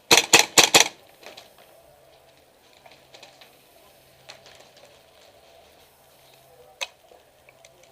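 Airsoft gun firing a quick burst of about six sharp shots within the first second, followed by one more single shot near the end.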